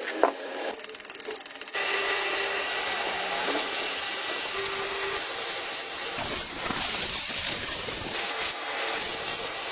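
Workshop tool and machinery noise: a burst of rapid clicking about a second in, then a steady, noisy machining sound with faint ringing tones.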